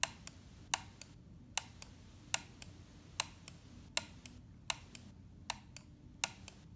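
Logitech MX518 mouse's left button clicked over and over, about nine presses, each a sharp click followed by a softer release click. The click sounds as if the button is hitting something on its way down, which the owner takes for a fault in the button.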